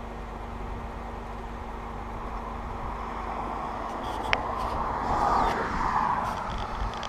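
Steady vehicle and road noise with a constant low hum. A short sharp tick comes about four seconds in, then a louder rushing swell, like a vehicle passing, rises and fades about five to six and a half seconds in.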